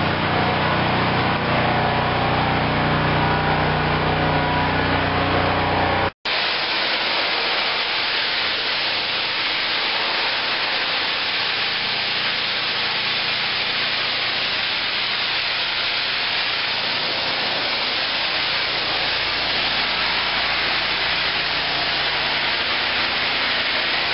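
Hot-water pressure washer running: the machine's steady engine hum under the hiss of the spray, then, after a brief cut about six seconds in, mostly the steady hiss of the high-pressure water jet.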